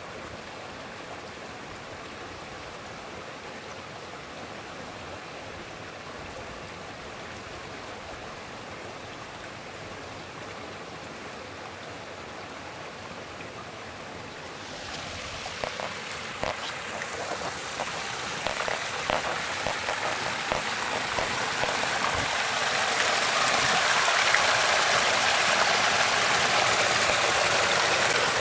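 Water from a stone fountain's seven spouts pouring and splashing into its basin. The rushing is faint and steady at first, then grows much louder from about halfway through.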